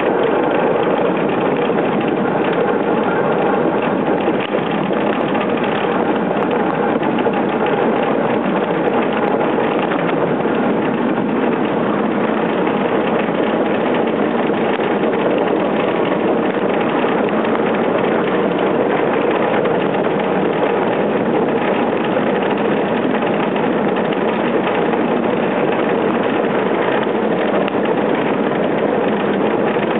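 Yankee-class iceboat sailing at speed: a loud, steady rumble and hiss of its runners sliding over the ice, mixed with the rush of wind.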